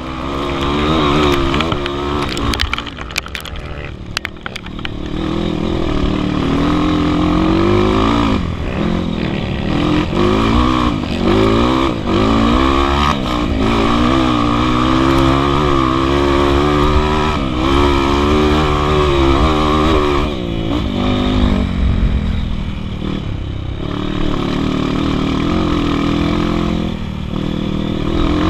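Single-cylinder four-stroke engine of a modified Honda CRF 240 dirt bike, fitted with a Bros piston and a hot camshaft, revving up and down over and over as the rider works the throttle and gears. It runs more evenly for a few seconds near the end.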